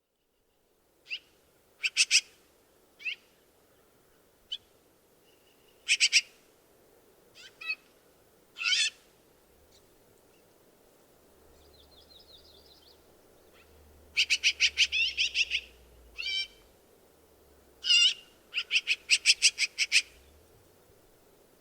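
Black-billed magpie calling: scattered single calls, then two rapid runs of about eight quickly repeated notes each, about two-thirds of the way in and near the end.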